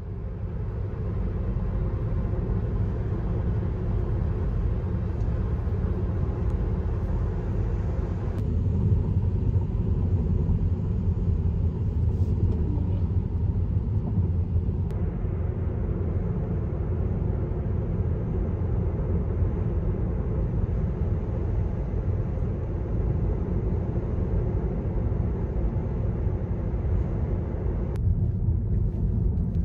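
Steady low rumble of tyre and road noise from inside a moving car, with a fainter hiss above it that shifts a little a few times.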